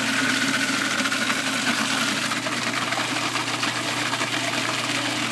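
Food processor motor running steadily, its blade grinding a thick chicken liver and butter mixture into pâté.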